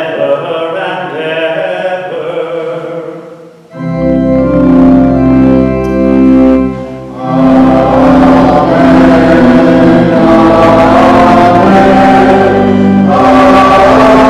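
Church music at Mass: voices singing fade out at about four seconds in, then a church organ comes in with sustained chords over a deep bass. After a short dip at about seven seconds it plays on fuller, with singing.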